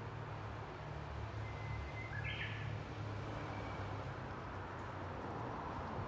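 Japanese bush warbler (uguisu) singing one song phrase about two seconds in: a held note, then a quick flourish. A steady low rumble runs underneath.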